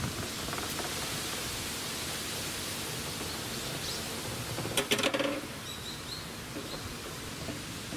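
Small ball rolling along a rough concrete ramp with a steady gritty hiss, then clattering against a plastic toy garage and into one of its bays, a quick run of sharp clicks about five seconds in. The rolling noise stops after the clatter.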